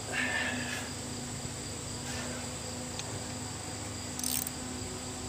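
Crickets trilling steadily in the surrounding grass. Over them come short scrapes and clicks of a wrench on a gunk-covered bolt of the lathe's carriage bracket, near the start and again about four seconds in.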